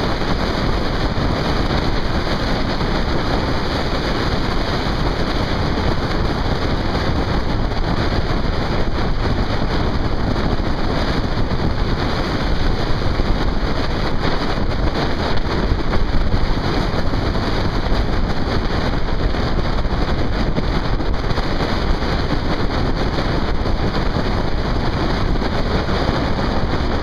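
Steady rush of wind across the microphone of a camera on a moving vehicle, with road and engine noise underneath.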